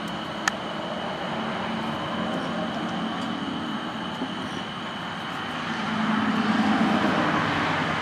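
A vehicle's steady rumble, swelling about six seconds in, with a single sharp click half a second in.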